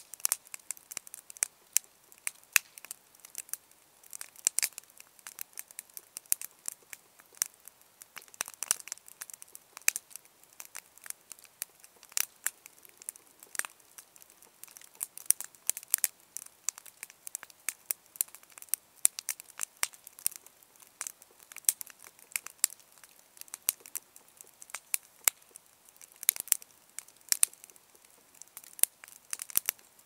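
Large wood campfire of stacked branches burning, crackling with dense, irregular pops and snaps.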